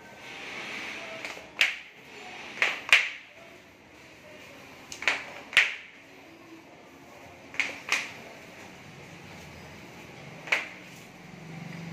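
Sharp slaps and knocks on tiled stair steps, mostly in pairs a few seconds apart, each with a short ring in the stairwell. A soft swishing hiss comes about a second in.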